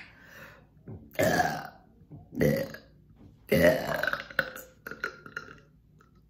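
A woman burping, three big burps about a second apart, the third the longest and loudest, then a few smaller ones trailing off. She is forcing up trapped air that she says is stuck deep down.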